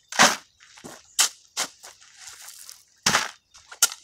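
Steel shovel scraping and biting into crushed stone, with stones clattering into a plastic bucket: a string of sharp gritty crunches, the loudest about a quarter second in and again about three seconds in.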